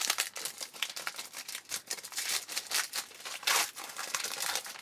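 Foil wrapper of a football trading-card pack crinkling and tearing as it is opened by hand: a dense run of crackles, loudest about three and a half seconds in.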